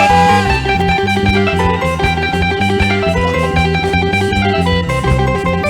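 Live praise band playing an instrumental passage: a guitar picks quick, short notes over a bass line.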